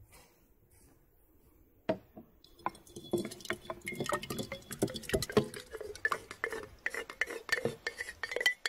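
A spoon scraping and tapping thick yogurt out of a clay pot into a glass jug: quick clinks and knocks against pot and glass. It starts with one knock about two seconds in and then comes thick and fast.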